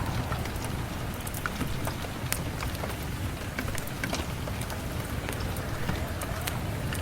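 Steady rain with a low rumble, mixed with a crackling fireplace giving scattered sharp pops and clicks.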